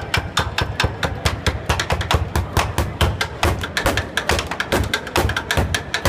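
Sticks drumming on an upturned plastic bin: a fast, unbroken run of strikes, several a second, deep thuds mixed with sharper clacks.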